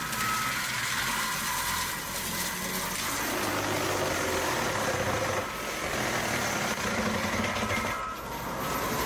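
A machine engine running steadily under a broad hiss.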